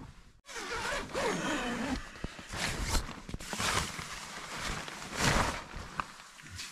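A tent zipper being pulled in several rasping strokes.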